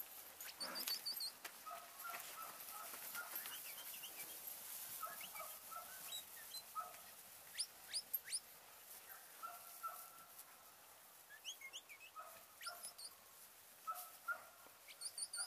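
Outdoor birds chirping and calling: scattered short repeated notes and quick, high rising whistles throughout.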